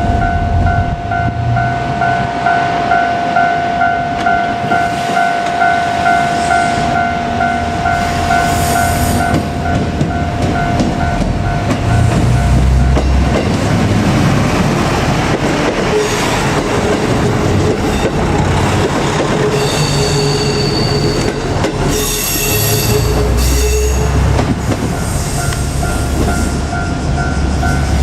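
Japanese level-crossing bell dinging in a steady repeating rhythm, then a diesel railcar passes over the crossing with engine rumble and wheel noise that drowns the bell. Bright high-pitched squeals come and go about twenty seconds in.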